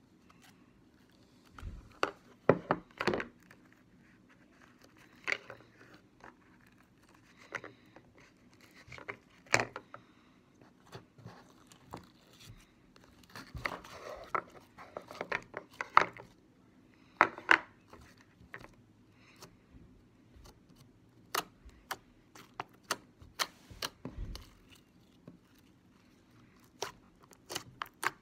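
Slime being handled: irregular small sticky clicks and pops as it is poured, stretched and pressed by fingers, with a few knocks of plastic tubs. The clicks come thickest about halfway through.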